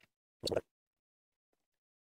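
A single brief rattle of small steel nuts and washers being handled, about half a second in.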